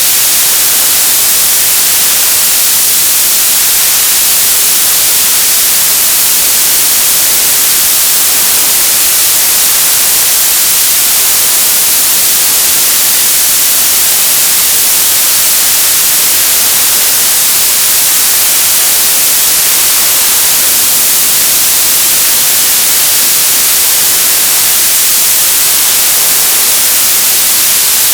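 Television static: loud, steady hiss, heaviest in the high frequencies, with no change or break.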